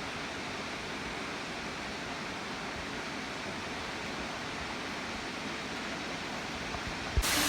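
Steady rushing of the Wli waterfall heard from a short way off. Near the end a brief knock, then the rush becomes suddenly louder and brighter.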